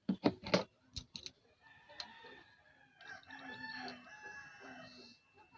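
A rooster crowing once, a long call of about three seconds. A few sharp clicks and taps come just before it.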